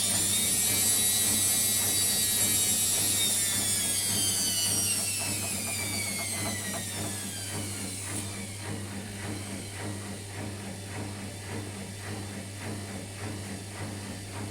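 Washing machine drum motor whining high, then falling steadily in pitch over about seven seconds as the drum slows down, over a constant low hum. After that only a quieter, rougher running sound goes on.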